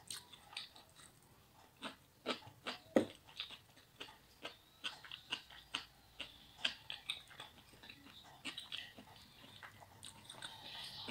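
Chewing a mouthful of lamb heart and liver with rice, close to the microphone: irregular wet mouth clicks and smacks, a few a second.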